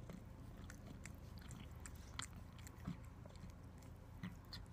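A domestic cat licking a person's cheek: faint, irregular wet clicks and smacks of its tongue on skin.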